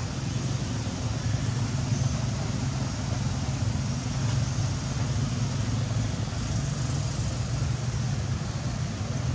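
Steady low rumble with an even hiss above it, unchanging throughout: outdoor background noise, with no distinct calls or knocks.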